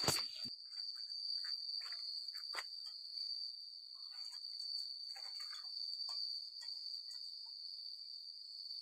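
Steady high-pitched insect drone, with faint scattered rustles and light knocks and a sharper knock right at the start.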